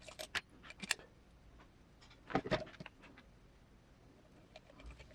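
Light clicks and small metallic clinks from handling small screws, nuts and tools at a workbench, in a quick cluster near the start and another about two and a half seconds in.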